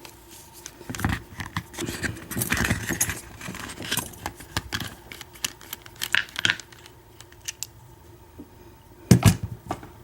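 Metal parts of an American Lock 1100 padlock clicking, scraping and jingling as it is handled and taken apart, with a louder knock about nine seconds in.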